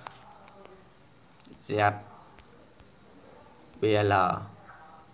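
A cricket trilling steadily in the background: one high tone pulsing rapidly without a break.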